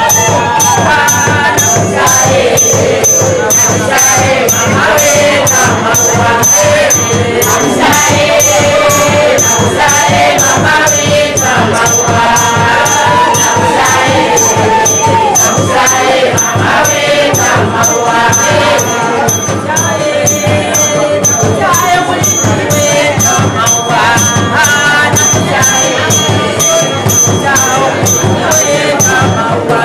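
Church congregation singing a praise song together, over a steady hand-percussion beat of about three strokes a second.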